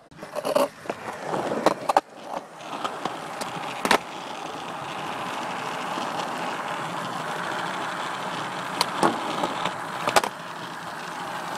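Skateboard wheels rolling steadily on smooth concrete, with several sharp clacks of the board in the first few seconds. Near the end come more clacks as the tail pops for a trick and the board lands.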